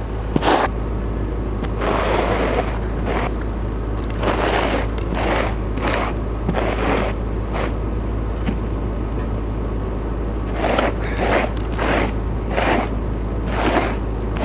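Snow being scraped and pushed off a vehicle's windshield with a plastic cup in a series of irregular strokes, over the steady low rumble of the engine idling.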